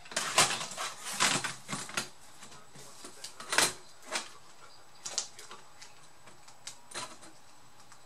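Plastic clicks and knocks from an ASUS R556L laptop's keyboard deck and case being handled and fitted back onto the chassis: a quick cluster in the first two seconds, a louder knock about three and a half seconds in, then a few scattered clicks.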